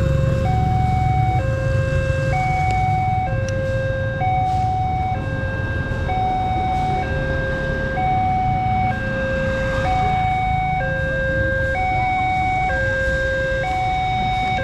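Railway level-crossing warning alarm sounding a steady two-tone electronic hi-lo signal, switching between two pitches about once a second, over a low rumble.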